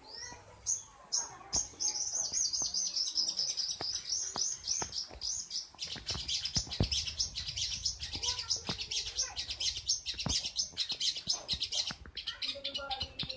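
Long-tailed shrike (cendet) singing. A few separate sharp calls are followed by a rapid, unbroken chatter of high notes that grows denser from about six seconds in.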